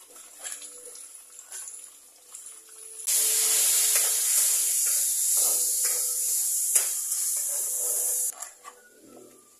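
Water running from a kitchen tap: a loud even hiss that starts abruptly about three seconds in and is shut off about five seconds later. Light clicks and knocks come before it.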